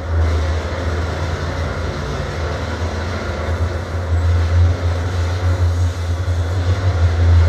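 Loud, deep bass rumble played through the speakers of a psychoacoustic sound installation, with a fainter hiss above it. It jumps up right at the start, then wavers and swells in level.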